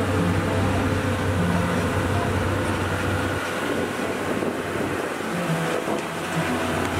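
Zoo sightseeing train running steadily, heard from on board the open carriage: a low, even motor hum under rolling and passing noise.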